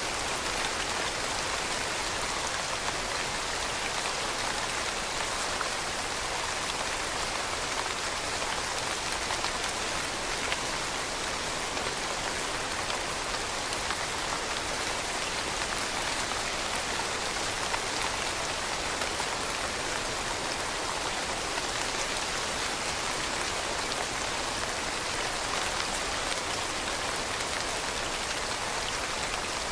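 Steady rain falling on leaves, an even hiss of many small drops with no change in intensity.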